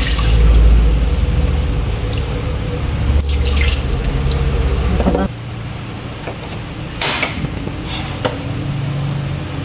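Water running from a kitchen tap, shut off suddenly about five seconds in, followed by dripping and quieter handling noise with one sharp clatter near seven seconds.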